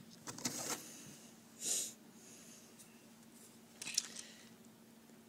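Faint rustling and scratching on drawing paper, with a short sniff-like breath about a second and a half in and a few light clicks near the end, over a low steady hum.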